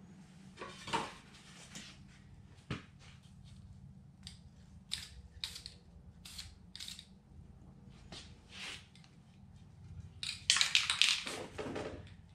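Aerosol spray-paint can hissing in a series of short bursts. Near the end comes a louder clatter of handling.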